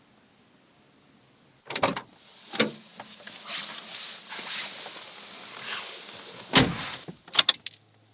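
Someone getting into a car: knocks and rustling, then a car door shut with a loud thump, followed by a few quick clicks just before the engine is started.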